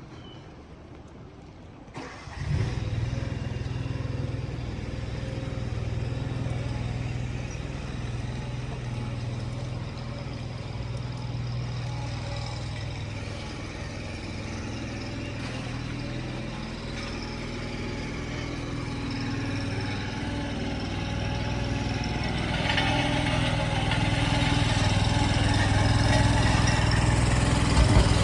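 An engine starts about two seconds in and runs steadily, growing gradually louder toward the end.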